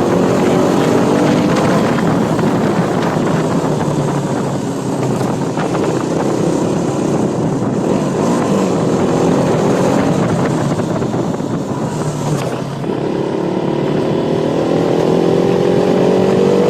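KTM Duke 200's single-cylinder engine running under way, its pitch climbing as the bike accelerates at the start and again about two-thirds of the way through, over steady wind and road noise.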